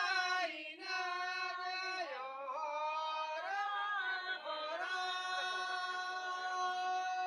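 Folk singing, with long held notes that slide up and down in pitch.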